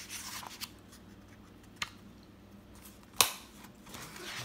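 Paper rustling as a page of a paperback picture book is handled and turned, with a sharp click about three seconds in, the loudest sound, and another faint click a little before it.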